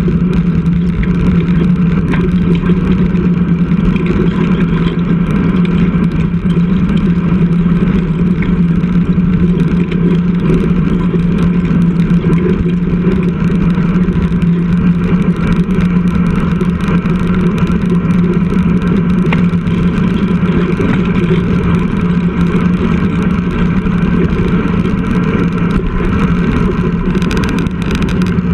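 Steady wind rush and road noise on a bicycle-mounted action camera riding along a road, with a constant low hum under it.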